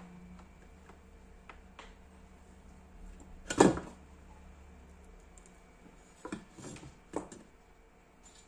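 A large black finned aluminium heatsink carrying an amplifier board being handled on a wooden workbench: one loud thump about three and a half seconds in as it is tipped down onto the bench, then a few lighter knocks as it is stood back upright.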